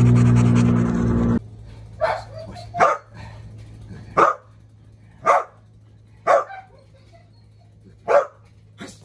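A loud steady drone that cuts off suddenly about a second and a half in, then a young Belgian Malinois barking at its handler: about six short, sharp barks, roughly one a second.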